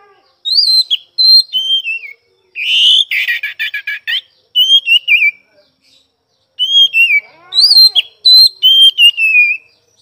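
Oriental magpie-robin (kacer) singing loud, clear whistled phrases that slide up and down in pitch, with a harsh rattling stretch about three seconds in. The song comes in two bouts with a short pause in the middle.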